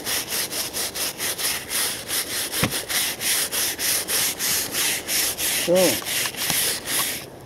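A gloved hand rubbing caked earth and rust off the rusted steel tube of a dug-up Panzerfaust 60/100, in quick even strokes about four a second that stop suddenly near the end. A short tone that rises and falls sounds about six seconds in.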